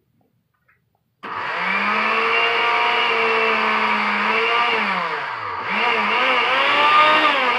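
Secondhand countertop blender with an empty glass jar switching on about a second in and running at full speed. Its motor pitch sags in the middle and picks up again near the end. The motor spins freely, no longer jammed.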